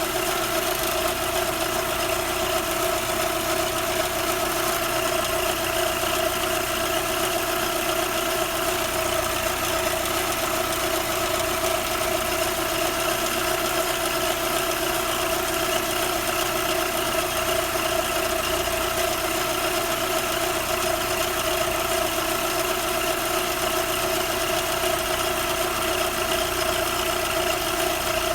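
Audi 80's PP four-cylinder petrol engine idling steadily with a constant whine-like tone over its running noise. The owner calls the noises it makes weird.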